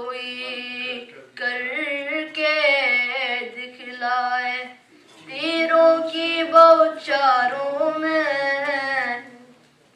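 A boy's voice chanting an Urdu manqabat, a devotional poem in praise of Ali, unaccompanied, in two long drawn-out melodic phrases with a short break about halfway.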